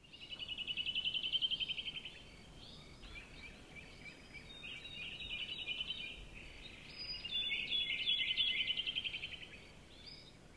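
Outdoor ambience of fast pulsing trill calls from animals, rising and fading in three bouts, the first near the start and the longest in the second half.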